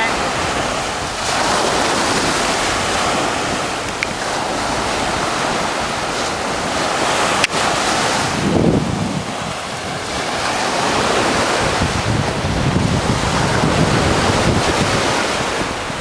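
Ocean surf breaking and washing up the beach, a dense rushing wash that swells and ebbs with each wave, with wind buffeting the microphone.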